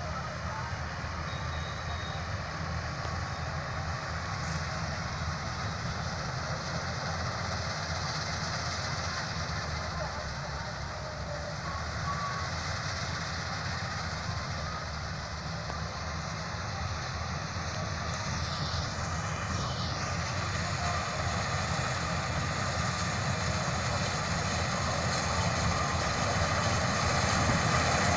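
Combine harvester running steadily as it cuts wheat, its engine and threshing machinery growing gradually louder as it draws closer.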